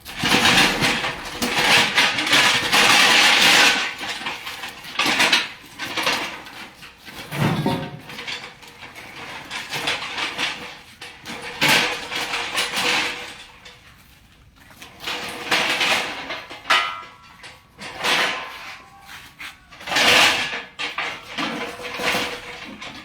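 Irregular metal scraping and clanking as a heavy machine is shifted into place by hand, in bursts of a second or a few seconds, over a faint steady hum.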